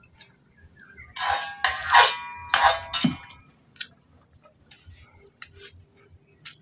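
Metal bowl and metal plate clinking and scraping together: a cluster of ringing clinks about a second in, lasting about two seconds. After that come light scattered ticks of fingers working food on the plate.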